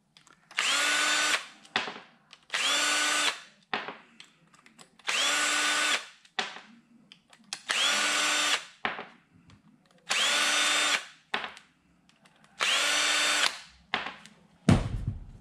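Cordless drill-driver backing the cover screws out of a Ducati oil pump. It makes six short runs of about a second each, every run spinning up quickly to a steady whine, with light clicks of screws and handling between them. A thump comes just before the end.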